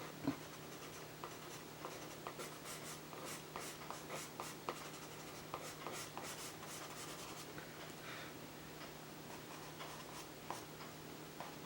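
Stabilo CarboThello pastel pencil scratching across vellum-surface mixed-media paper in short, irregular strokes, with a light tap about a quarter-second in.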